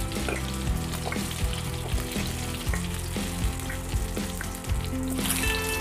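Pork spare ribs sizzling in hot oil in a nonstick frying pan, browned and nearly done, with scattered short clicks as metal tongs lift the pieces out.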